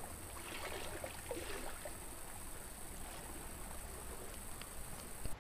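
Quiet background: a steady hiss with a few faint ticks and rustles.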